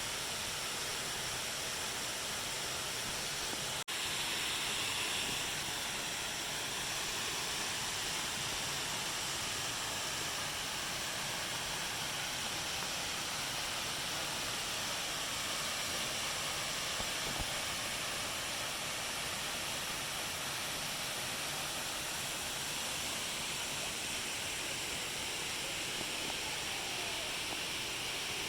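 Waterfall: a steady rush of falling water, broken by a momentary dropout about four seconds in.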